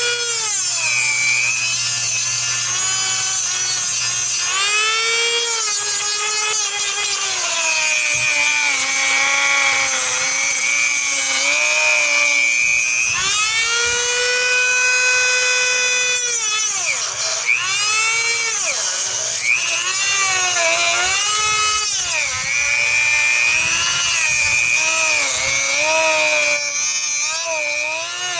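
A small power tool cutting into a plastic engine valve cover to get at the built-in crankcase ventilation valve. Its whine runs continuously, its pitch dipping and recovering over and over as the tool bites under load.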